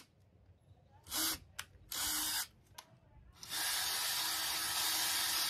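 Ryobi cordless drill boring a pilot hole through a wooden furring strip: two short bursts of the trigger, then a steadier run of about two seconds near the end.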